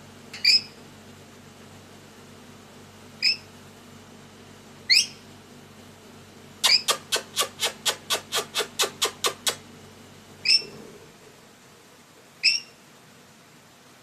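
Pet lory (lorikeet) giving short, sharp, shrill calls a couple of seconds apart, with a quick run of about a dozen rapid chirps lasting about three seconds in the middle. A steady low hum runs underneath and fades out about eleven seconds in.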